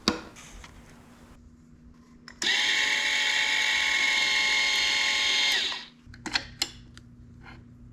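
Small electric gear motor of a Vevor HD10 welding positioner running with a steady whine for about three seconds, starting abruptly and winding down at the end. A click comes at the start and a few light clicks follow afterwards.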